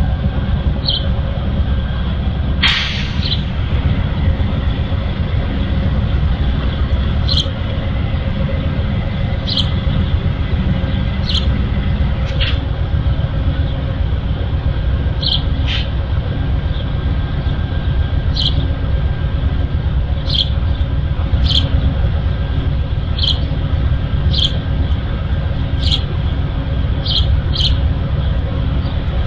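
Steady low rumble from a stopped Amtrak long-distance passenger train standing at the platform with its diesel locomotives idling. A short air hiss comes about three seconds in, and short high chirps sound every second or two.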